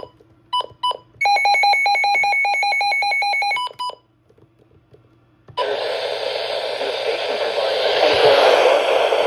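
Midland WR-100 weather radio beeping: a few short single beeps, then a rapid string of alarm beeps, about eight a second, for about two and a half seconds. After a short pause its speaker gives out loud steady static hiss from about five and a half seconds in.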